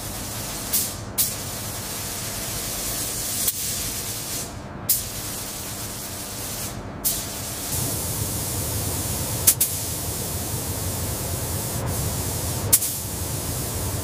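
Steady spraying hiss of a paint spray gun applying a coating, broken by short clicks every couple of seconds.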